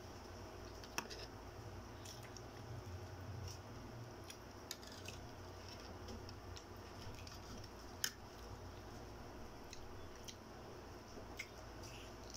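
Quiet sounds of food being handled and eaten at a table: scattered small clicks and taps, with two sharper clicks about a second in and about eight seconds in, over a steady low hum.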